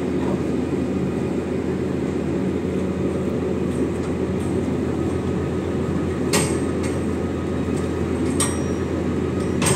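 Diesel engine of a Hyster reach stacker container handler running steadily with a low rumble while it holds a 20-foot shipping container. Three sharp metallic clanks, about two-thirds of the way in, again two seconds later and at the very end, as the container's steel doors are pushed shut.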